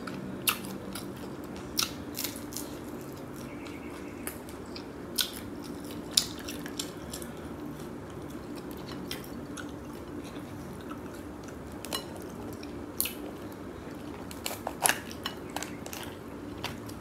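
Sauce-coated blue crab being cracked and pulled apart by hand, with chewing: scattered sharp cracks and clicks, some in quick clusters, over a steady low hum.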